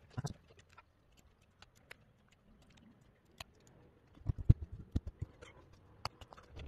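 Whittling knife shaving a green-wood spoon blank: scattered short clicks and scrapes of the blade cutting wood, with a cluster of louder low knocks about four and a half seconds in.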